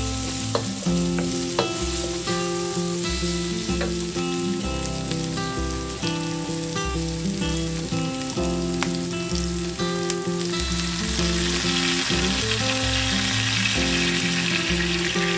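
Sliced onions and green peppers sizzling as they are stir-fried in a metal wok, with a wooden spatula clicking and scraping against the pan. From about ten seconds in the sizzle grows louder, as liquid seasoning goes into the hot pan. Background music with a steady bass plays throughout.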